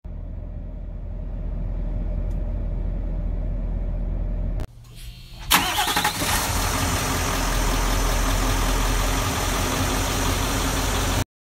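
Diesel pickup truck engine running. It starts as a steady low idle, drops away briefly, then a louder run begins suddenly with a short rising whine and stays steady until it cuts off abruptly.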